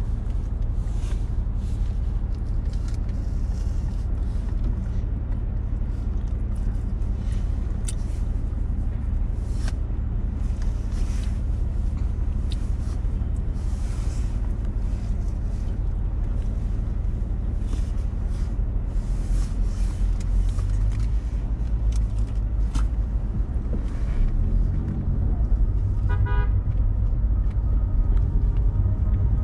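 Car driving through city traffic: a steady low rumble of engine and tyres on the road, with other vehicles passing. Near the end comes a brief rapid run of short beeps.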